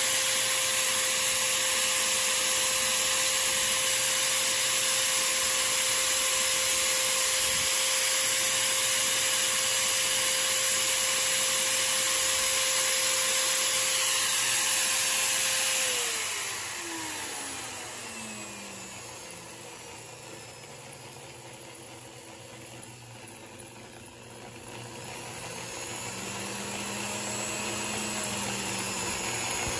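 Small power tool's electric motor running steadily at high speed, spinning a workpiece held in its chuck. About sixteen seconds in it winds down, its whine falling in pitch, and near the end it starts running again at a much lower speed.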